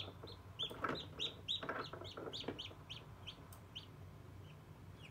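Newly hatched chick peeping: a quick run of short, high, falling peeps, about four a second, that stops about four seconds in, with a few soft knocks among the first peeps.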